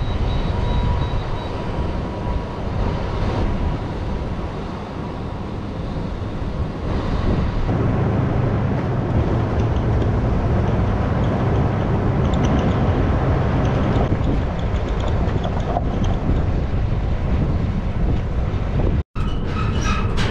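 Pickup truck towing a loaded stock trailer along a gravel road: a steady rumble of engine and road noise, with wind on the microphone. It grows louder about seven seconds in and cuts off for an instant near the end.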